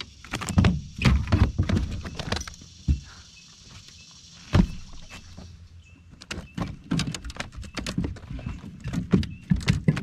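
Irregular knocks and thumps on a bass boat's deck, loud and close, as the angler moves about and handles his catch. A faint steady high hiss runs under them and stops a little more than halfway through.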